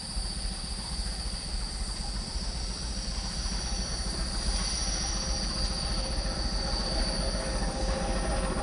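Passenger train hauled by a diesel locomotive approaching on a curve: a steady engine and rolling rumble that grows slowly louder, with a high, steady wheel squeal.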